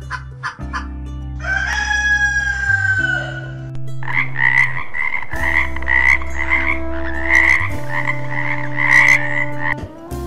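A rooster crows once, a long falling call about a second and a half in. Then, from about four seconds in, a tree frog calls with a run of rapid, pulsing croaks that goes on until near the end.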